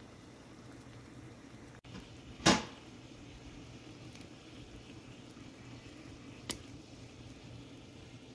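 Water at a rolling boil in a pan over a gas burner: a steady bubbling hiss with a low hum underneath. One loud sudden thump about two and a half seconds in, and a faint click about six and a half seconds in.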